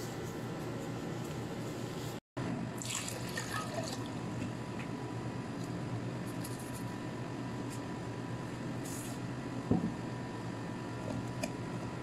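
Ingredients being poured and tipped from small bowls into a glass blender jar, faint over a steady background hum. The sound cuts out briefly about two seconds in, and there is a single sharp knock near the end.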